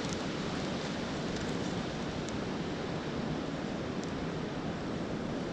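Steady rushing wind noise, with a few faint ticks.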